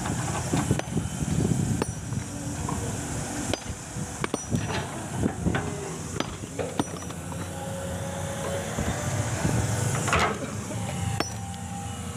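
Excavator's diesel engine running steadily under heavy load, with repeated sharp clanks and knocks as the bucket works against a huge rock.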